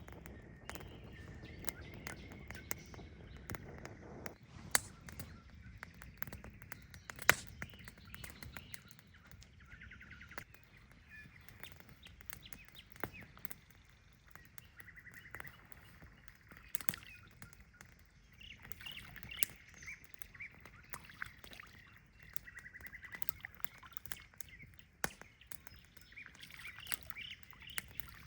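Birds calling on and off, with many scattered small clicks and snaps and two sharper snaps about five and seven seconds in.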